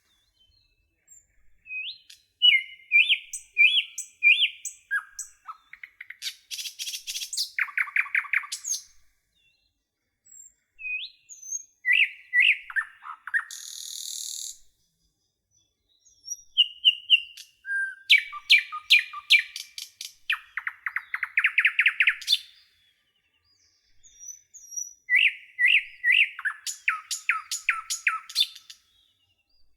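Small songbirds chirping and singing in short phrases of rapid trills and clear whistled notes, with brief silent pauses between phrases.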